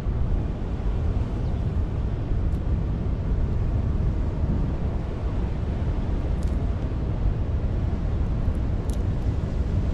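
Steady low rumble of wind buffeting the microphone, with surf behind it.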